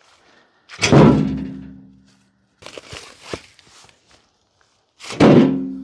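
Heavy chunks of tree trunk dropped, landing with a loud thunk twice about four seconds apart, each with a brief ringing tail; a few lighter knocks in between.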